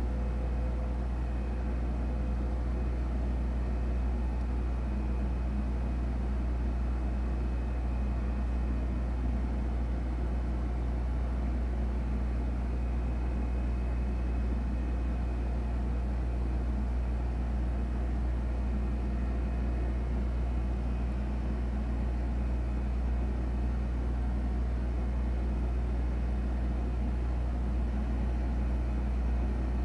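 Steady low-pitched hum with a few faint steady tones above it and no distinct events.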